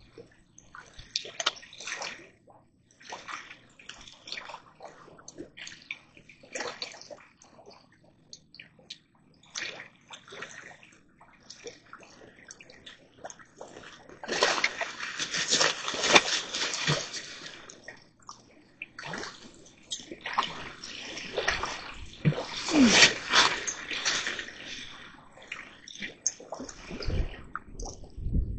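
Water splashing and sloshing in irregular bursts, heaviest for a few seconds about halfway through and again a little later.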